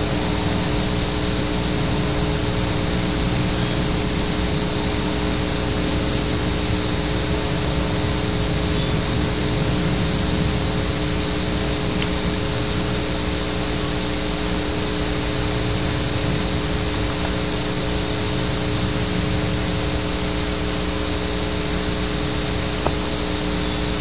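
Steady hum and hiss from a barn owl nest-box camera's audio feed, unchanging throughout, with one brief click near the end.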